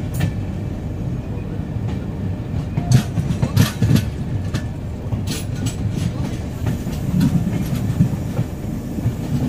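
Express passenger train running on the rails, heard from aboard one of its coaches: a steady low rumble with sharp clicks and clacks of the wheels over rail joints, the loudest about three to four seconds in and again around five seconds.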